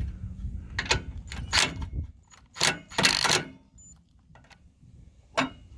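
A few sharp metallic clinks and clatters of tools and hardware being handled. A low hum fades out about two seconds in.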